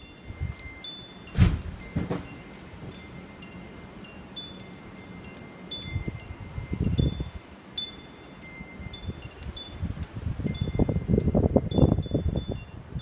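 Wind chimes ringing, scattered high tinkling notes through the whole stretch, with irregular bursts of low rumble, heaviest about ten to twelve seconds in.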